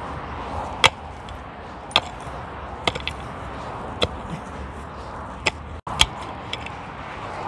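Pickaxe striking dry, grassy ground as a planting hole is dug: about six sharp blows, roughly one a second, over a steady background noise.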